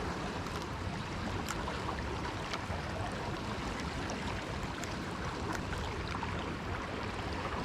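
Steady rush of flowing river water, with a few faint scattered ticks.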